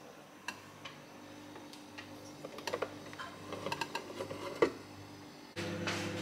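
Faint scattered clicks and light taps, then a steady hum starts about five and a half seconds in.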